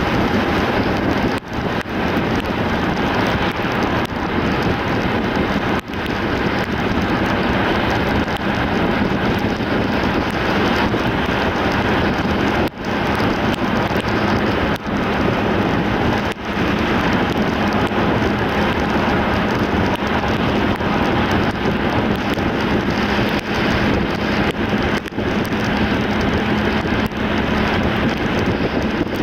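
Steady tyre and road hiss of a car driving on a wet road, with a faint low engine hum underneath. The noise briefly dips several times.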